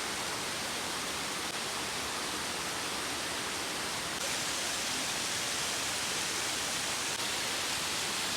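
Steady rushing of falling water from a waterfall, an even hiss with no breaks, which gets a little louder about four seconds in.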